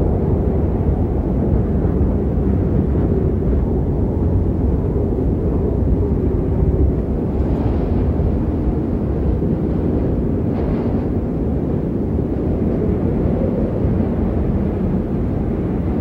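Strong wind blowing as a steady, loud, low roar, with the deepest rumble strongest.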